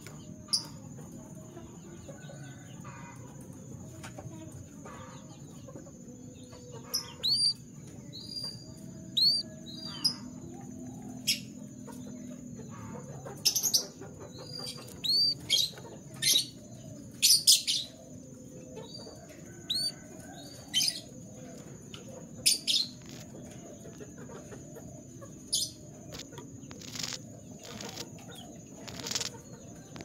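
Canary fluttering and hopping about its cage, with wing flaps and short, hooked chirps scattered through from several seconds in. A steady high whine runs underneath.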